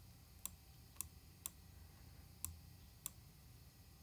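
About five faint, sharp clicks from the iBook G3 clamshell laptop, spaced unevenly, as the web page is scrolled back up.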